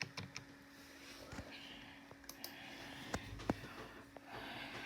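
Computer mouse clicking, a handful of sharp separate clicks spread irregularly, over a faint steady hum.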